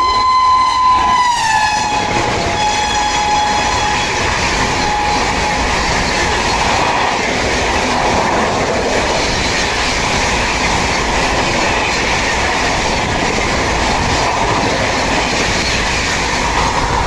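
WAP7 electric locomotive's horn sounding one long shrill blast whose pitch drops as the locomotive passes at speed, fading out about five seconds in. The Rajdhani Express coaches then rush past at about 130 km/h with a steady loud noise.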